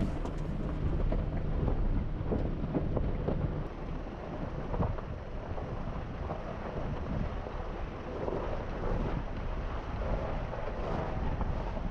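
Wind rumbling on the microphone of a camera mounted on an off-road vehicle driving a gravel dirt trail, over engine and tyre noise. A steady low engine hum drops out about a third of the way in, leaving mostly wind and tyre rumble.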